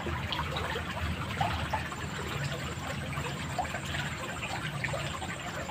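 Water in a muddy drainage ditch flowing and trickling, a steady watery noise.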